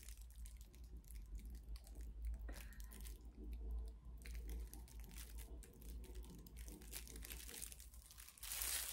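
Faint, irregular crinkling and light clicking of disposable plastic gloves rubbing against a plastic hair-relaxer tub as it is turned and handled.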